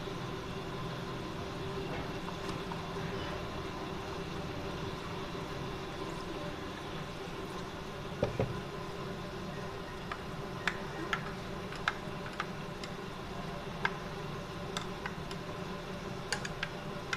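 Steady background hum, with scattered light clicks and knocks and one thump about eight seconds in.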